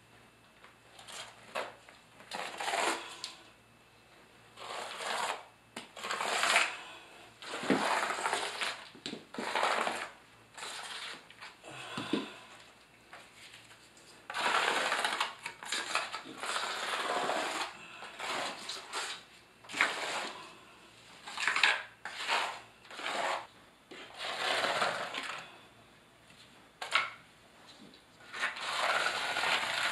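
Steel V-notch trowel scraping thin-set mortar across the shower floor membrane in irregular strokes, each under a second or so, with short pauses between: the mortar being skimmed in with the flat side and combed out.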